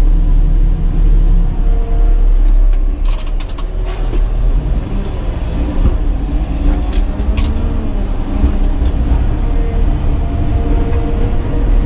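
Caterpillar 120K motor grader's diesel engine running steadily while the machine works its blade, heard from inside the cab. There is a cluster of sharp knocks about three seconds in and another around seven seconds.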